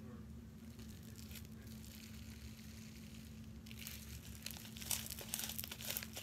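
Clear glitter slime being mixed and squished in its container: fairly quiet at first, then from about four seconds in, a run of sticky crackling and popping clicks that grows busier. A faint steady hum lies underneath.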